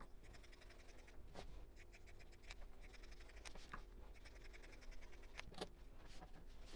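Scissors snipping along the edge of layered quilting fabric, trimming it to size: a faint run of quick cuts and blade clicks.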